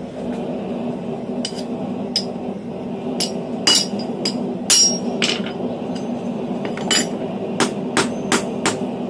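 Hammer blows on hot steel on an anvil, thinning the lip of a forged bottle opener. The strikes come irregularly, starting about a second and a half in, some in quick runs of two to four, over a steady low hum.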